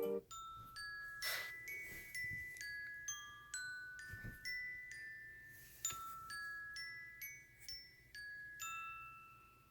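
An iPhone ringtone: a slow, sparse melody of high bell-like glockenspiel notes, each struck and left to ring, about two a second, fading out near the end.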